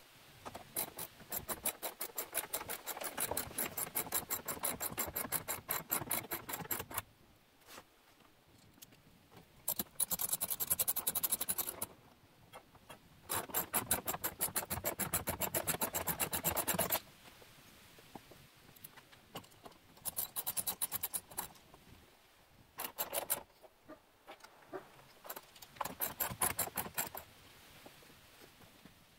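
Socket ratchet wrench clicking rapidly as it drives 5/16-inch lag screws through a steel door-reinforcement plate into the wall studs. The clicking comes in repeated runs, the longest about six seconds, with short pauses between and a few brief runs near the end.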